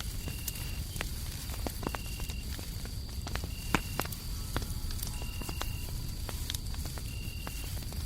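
Fireplace crackling with scattered sharp pops, the loudest about four seconds in, over a steady low hum of white noise. Crickets chirp through it: one holds a steady high trill, while another gives a short chirp about every second and a half.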